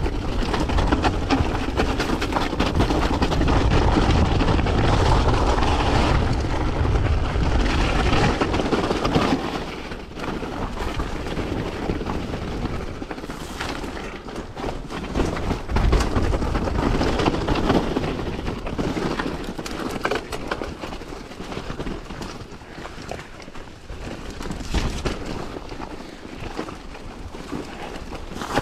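Mountain bike descending a steep rocky trail: tyres crunching over loose stones and gravel, with the bike rattling and clattering over rocks. A deep rumble over the microphone is heaviest in the first third.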